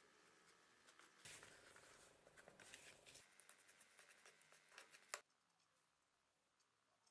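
Faint scraping and light clicks of a small tool stirring sawdust into a blob of resin on a paper card, with one sharper tick about five seconds in. After that it drops to near silence.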